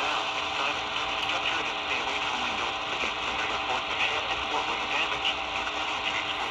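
Off-air radio reception thick with static: a steady hiss with a constant hum under it, and a faint, garbled voice barely showing through.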